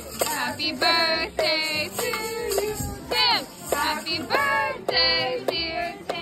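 A birthday song: high singing voices over a musical backing, with held notes of about half a second each.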